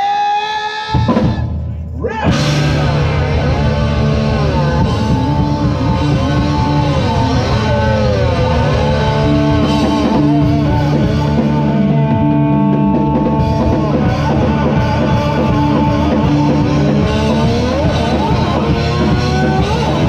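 Live rock band playing: drum kit, electric guitar and bass, with a held lead line that bends and slides in pitch. After a short sliding note at the start, the full band comes in about two seconds in.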